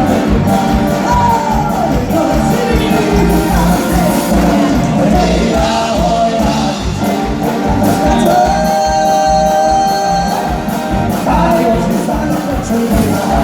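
Live band music: singing over a steady drum beat, with one long held note about two-thirds of the way through.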